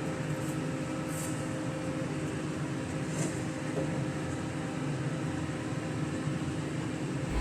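A steady mechanical hum with a few faint tones.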